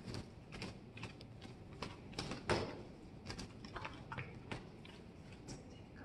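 Faint handling noise: scattered light clicks and knocks, the loudest about two and a half seconds in.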